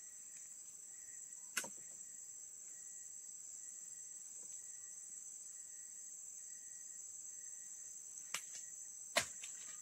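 Steady high-pitched insect chorus, like crickets or cicadas, with a fainter on-and-off tone beneath it. Three short sharp snaps cut through it, one about a second and a half in and two close together near the end.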